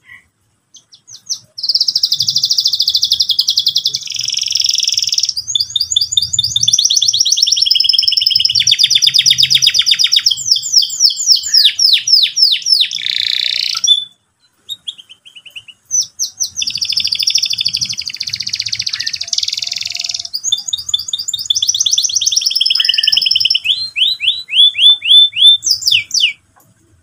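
Domestic canary singing a loud, fast song of rolling trills and rapidly repeated high notes, in two long bouts separated by a pause of about two seconds.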